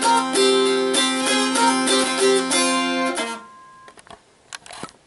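Mountain dulcimer being plucked: a tune over steady low drone notes. The tune ends about three seconds in and the strings ring out, followed by a few faint clicks.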